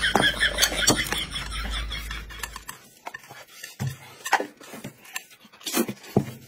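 Eating and tableware noises: scattered clicks and scrapes of a spoon and chopsticks against plates, then a few louder slurps of noodles near the end.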